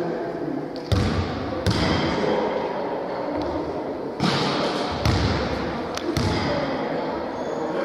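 Basketball bouncing on a sports-hall floor: about six separate thuds, the first two about a second in, then a cluster from about four to six seconds in.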